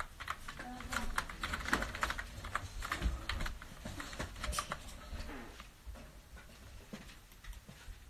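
Computer keyboard being typed on: quick runs of key clicks, dense at first and thinning out over the last few seconds.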